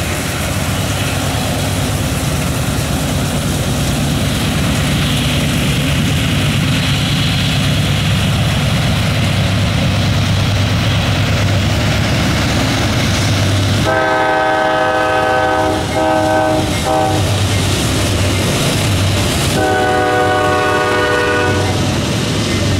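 Norfolk Southern freight train's GE diesel locomotives approaching and passing with a steady engine rumble and wheel noise. The air horn, several notes at once, sounds in two blasts about two-thirds of the way in, another long blast a few seconds later, and a further blast starting near the end.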